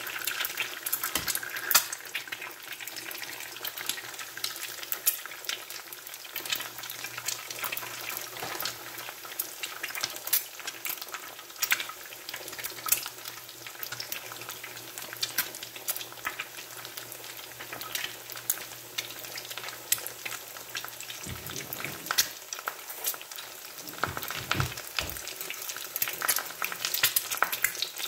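Quail eggs frying in a cast-iron skillet, with a continuous sizzle and fine crackle of spitting fat. A few soft low knocks come about three-quarters of the way through.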